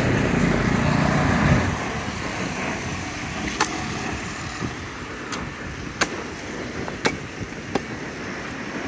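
Meat cleaver chopping spit-roasted sheep on a wooden chopping block: about five sharp chops at irregular intervals, starting about three and a half seconds in, over a low background hum of street traffic. A louder low rumble fills the first second and a half, then cuts off.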